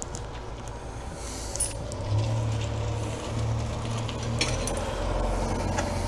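A few light metallic clicks and clinks from a brake caliper and pad bracket being handled, over a steady low rumble that grows louder about two seconds in.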